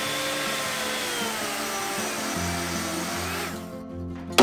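Hand-held electric circular saw cutting into a wooden beam, its motor whine sliding down in pitch and stopping about three and a half seconds in, with background music behind. A single sharp knock comes right at the end.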